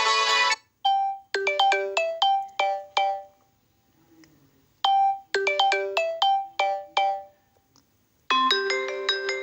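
Samsung Galaxy Tab A ringtones previewed one after another: a busy melody cuts off just after the start, then a short melody of quick, fast-fading notes plays twice with a pause between, and a new fuller ringtone with held notes begins near the end.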